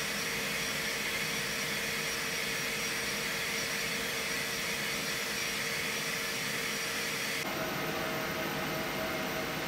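Steady whooshing machine noise with a faint hum running under it. About seven and a half seconds in it switches abruptly to a different steady noise carrying a few faint thin tones.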